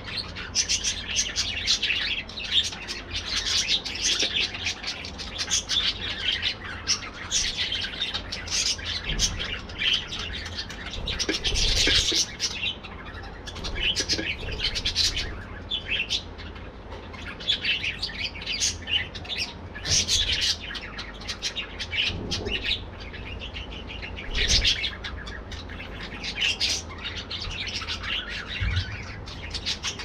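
A flock of budgerigars chattering, with many short chirps overlapping without pause.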